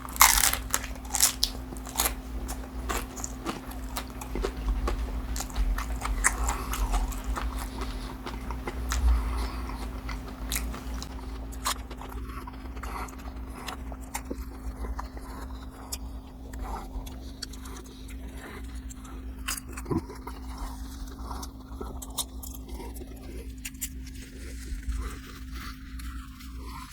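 Biting into and chewing a crispy fried fish taco: a loud crunch at the first bite, then irregular crunching and chewing. A steady low hum runs underneath.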